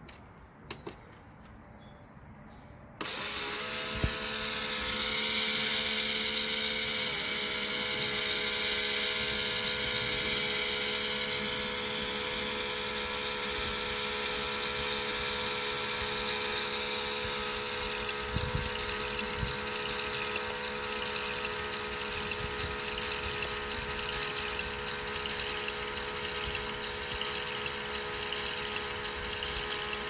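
A couple of clicks, then about three seconds in a Miele toy dishwasher's small electric pump starts and runs steadily: a motor whine over the hiss of water spraying inside. The hiss eases a little past the halfway mark.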